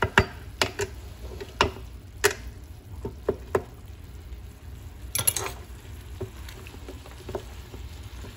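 Spatula clicking and scraping against a nonstick electric skillet while stirring a steak and vegetable stir fry, in sharp irregular knocks that come thick in the first few seconds, bunch up again about five seconds in, then thin out.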